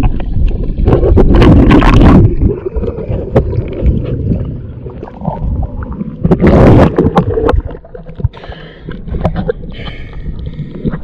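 Pool water rushing and sloshing around a waterproof camera as it moves underwater and breaks the surface, with a deep rumble throughout. Loud rushing bursts come in the first two seconds and again about six and a half seconds in, and it settles to softer lapping near the end.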